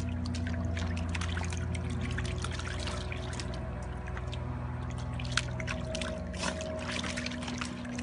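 Shallow water in an inflatable paddling pool splashing and sloshing in many small, irregular splashes as a cockapoo puppy paddles and stamps about in it, over a steady low hum.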